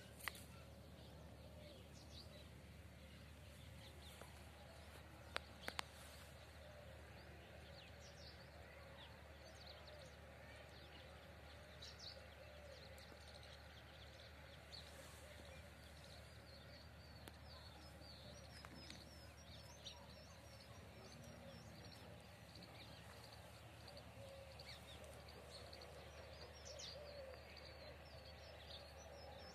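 Faint open-air ambience with distant birds chirping and calling throughout. A few sharp clicks come just after the start and again around five and a half seconds in.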